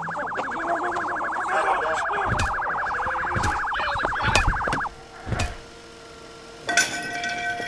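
Police siren in a rapid warble, about a dozen cycles a second, cutting off abruptly about five seconds in, with a few deep thumps under it and a sharp click near the end.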